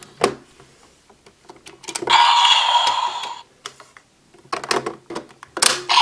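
Plastic clicks and snaps of a DX Powered Builder buckle toy being handled as its buckle is taken out and another fitted. A short electronic sound effect from the toy's speaker plays about two seconds in.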